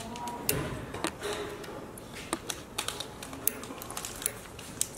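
Irregular light clicks and taps of a steel roller chain and its clamp carriers being handled by hand.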